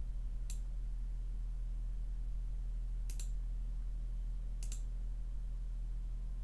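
A few computer mouse clicks, sharp and spaced a second or more apart, with a double click about three seconds in. Under them runs a steady low electrical hum.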